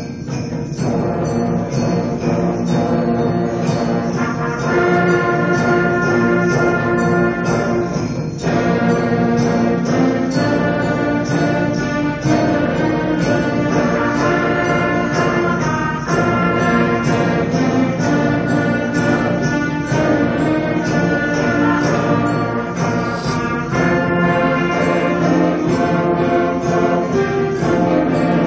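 Middle school beginning concert band playing a piece together, with brass and wind instruments sounding several notes at once.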